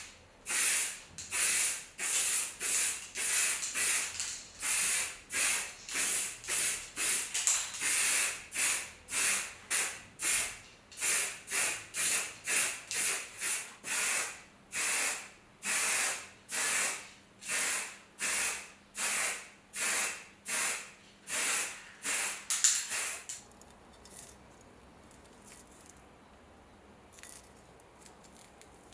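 Aerosol spray paint can hissing in dozens of short bursts, about one every two-thirds of a second, as paint is sprayed on in quick passes; the spraying stops about 23 seconds in.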